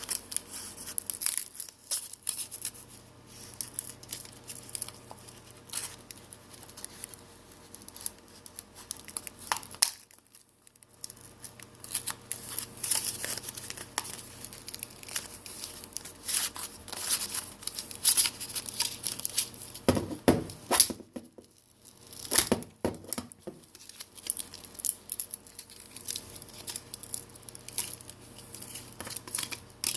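Plastic playing card scraping and prying under a Samsung Galaxy J5's glued LCD, with crackling and tearing of the adhesive as the screen is lifted from the frame. Irregular scratches and clicks, with two short pauses.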